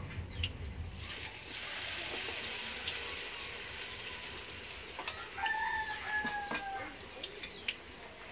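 Hot oil sizzling in a wok as battered anchovies fry. About five seconds in, a rooster crows once, a held call of nearly two seconds that is the loudest sound.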